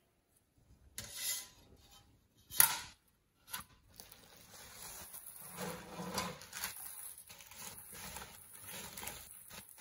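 Bubble wrap and plastic rustling and crackling as painted glass panels are lifted out of a cardboard box, with a few short knocks early on, the sharpest about two and a half seconds in.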